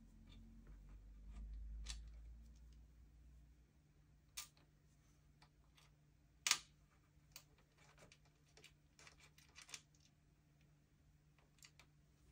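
Faint, scattered clicks and taps of a hand screwdriver turning screws to fasten a motherboard into a metal PC case, with one louder click about six and a half seconds in and a few quick ones near the end.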